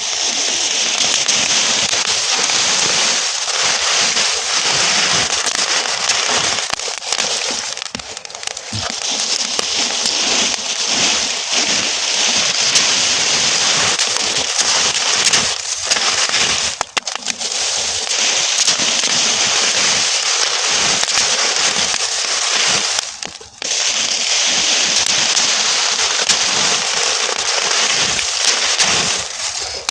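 Burning straw crackling and popping densely and continuously, with many sharp snaps. The sound drops out briefly twice, once near the middle and again about two-thirds of the way through.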